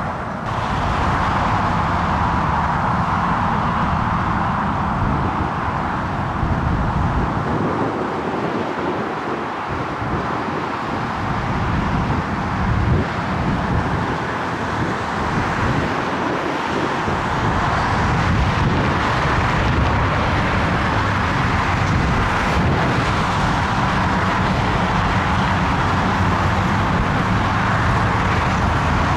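Strong gusty wind buffeting the microphone in an irregular low rumble, over a steady rushing noise.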